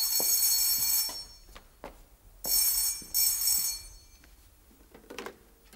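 Landline telephone ringing: two rings about a second long each, the second with a brief break in it.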